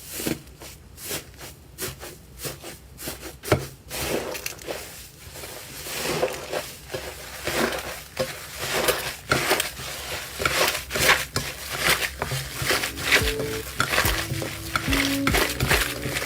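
Slime being squeezed and poked by hand, giving a fast, irregular run of sticky clicks and pops. Soft music comes in near the end.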